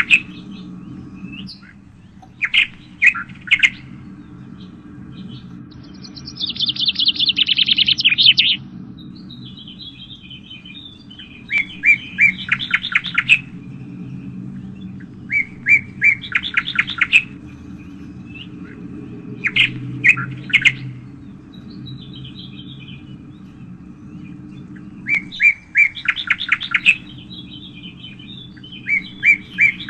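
Birds chirping in short bursts of rapid, evenly spaced notes, repeated every few seconds, with a longer, faster trill about six seconds in. A steady low hum runs underneath.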